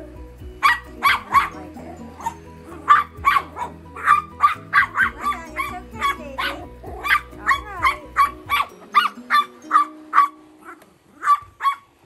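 Yorkshire terrier barking over and over at a running Roomba robot vacuum, sharp high yaps at about two to three a second, with a few whining yips mixed in around the middle. A steady low hum runs underneath and stops about nine seconds in.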